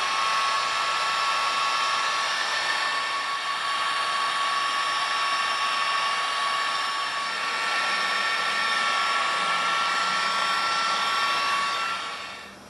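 Electric heat gun blowing steadily with a whining fan, shrinking heat-shrink tubing over soldered wire splices. It shuts off near the end and the whine drops away.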